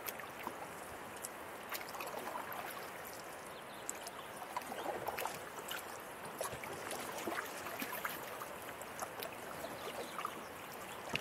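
River water moving and lapping around an inflatable packraft canoe, with soft paddle strokes dipping into the water and small splashes here and there.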